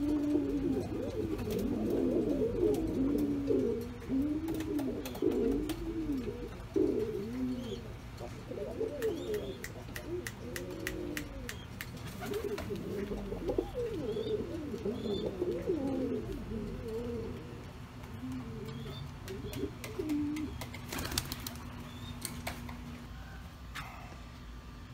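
Pouter pigeons cooing: repeated low coos that rise and fall in pitch, going on for about twenty seconds before they stop. A few light clicks come in the middle, and there is a brief noisy burst about 21 seconds in.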